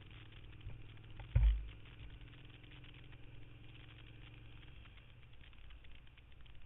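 Suzuki SV650's V-twin engine running steadily at low revs under wind and road noise, heard from the bike itself. One heavy thump about one and a half seconds in.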